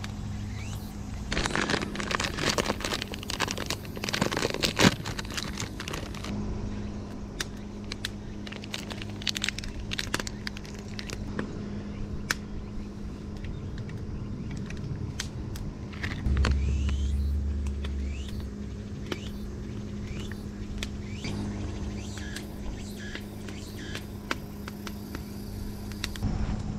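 Wood fire crackling and popping with many sharp clicks, then the crinkle of a packet being cut open and powder tipped into a metal cup, over a steady low hum. A brief low rumble comes about sixteen seconds in.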